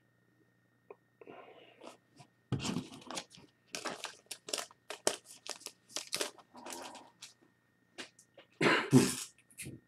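Irregular rustling and crinkling from cards and their plastic sleeves being handled and shuffled through, with a louder, sharp burst near the end.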